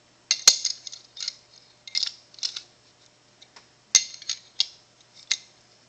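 Metal clicks and clinks of a steel pin spanner wrench being set into the spanner nut of a forged flex joint and turned to tighten it. Two sharp clicks, about half a second and four seconds in, stand out among several lighter ones.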